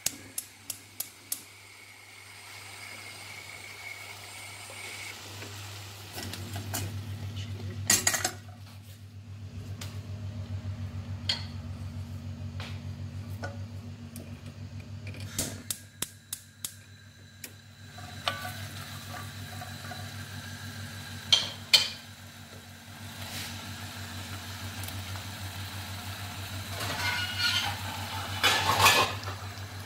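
Gas stove spark igniter ticking rapidly, about three to four clicks a second, for the first second or so as the burner knob is turned. After that, a wooden spoon stirs chopped onion and tomato in a stainless steel pot, with knocks and clatter against the pot, the loudest near the end, over a low steady hum.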